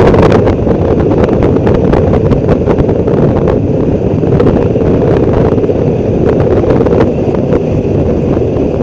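Loud wind buffeting the microphone: a steady rumble with frequent crackles.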